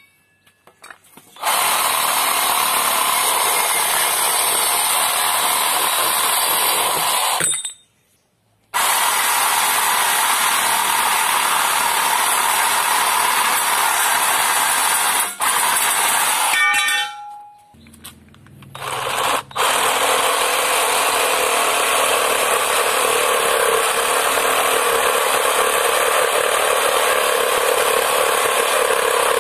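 IMAX IMRS20 20V cordless reciprocating saw running at full speed, its blade cutting rusty steel tubing, with a short stop about eight seconds in. After a pause a little past halfway, it cuts a wooden board to the end.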